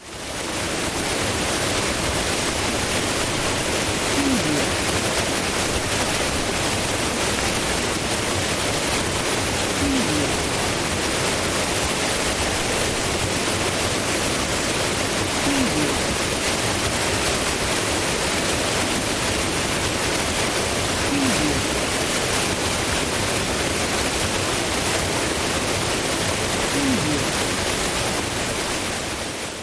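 Powerful rushing water flowing fast and strong, a steady dense roar of water with no break.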